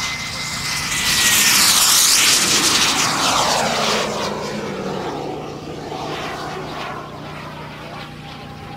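Radio-controlled model jet making a fast pass: its whine and rushing noise swell to a peak about two seconds in, drop in pitch as it goes by, then fade away.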